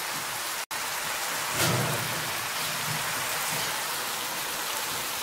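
Sliced mushrooms and chopped onions frying in oil in frying pans: a steady sizzling hiss. The sound cuts out for an instant a little under a second in, and there is a soft knock a little under two seconds in.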